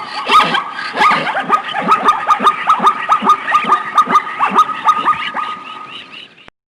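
Zebra calling: a fast run of short yelping barks, several a second, each dropping in pitch, cut off abruptly near the end.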